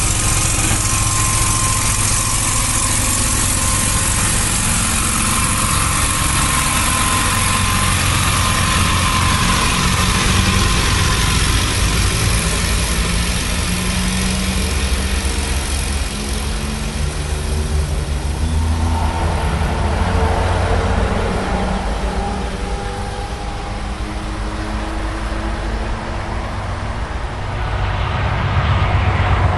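Electric multiple unit pulling away: a steady rumble of wheels and running gear with a whine from its electric traction equipment. About two-thirds of the way through, several whining tones rise in pitch as it gathers speed.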